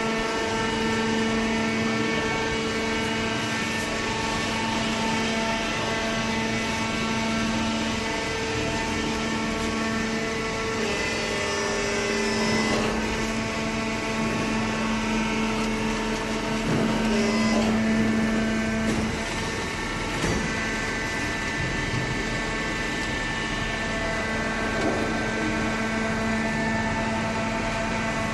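Hydraulic baler running: a steady machine hum with a pitched drone that holds throughout, and a few short knocks around the middle.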